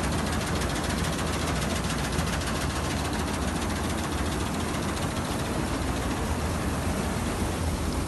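Combine harvester working through standing wheat: a steady low engine drone under a dense, fast mechanical clatter from the header and threshing gear, running at an even load.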